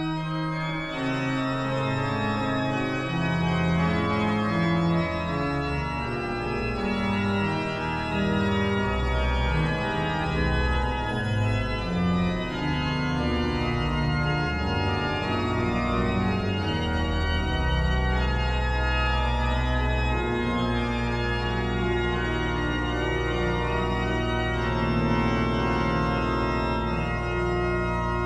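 Pipe organ music: several parts moving in sustained notes, with a low bass note held beneath them through the last third.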